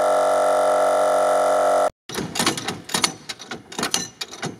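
Portable air compressor running with a steady hum as it pumps up an off-road tyre through its hose, cutting off abruptly about two seconds in. Then comes a run of irregular clicks and knocks.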